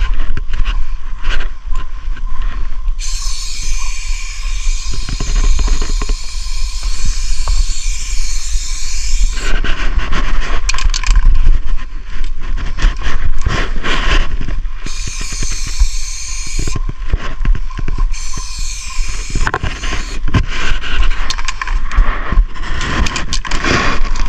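Aerosol spray-paint can hissing as paint is sprayed onto a concrete wall: one long burst of about six seconds, then two short bursts, with clicks and knocks of handling the can in between.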